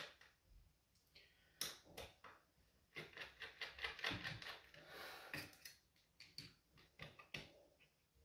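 Faint, irregular clicks and taps, coming in quick clusters around the middle: a small screwdriver and fingers working on the metal back frame of an opened LED TV panel.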